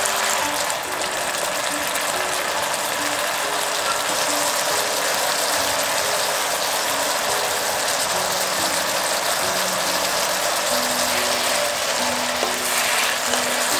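Eggplant, minced pork and sauce sizzling in a frying pan as a wooden spatula stirs and scrapes through them, a steady noise throughout. A soft melody of background music plays underneath.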